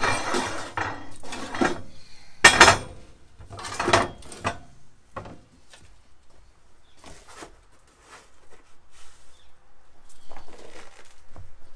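Steel pipe rails clanking and knocking against the metal frame of a foundry sand bin as a wooden-framed sand riddle is set up on them. There are a few loud clanks in the first five seconds, the loudest about two and a half seconds in, then lighter knocks and scrapes.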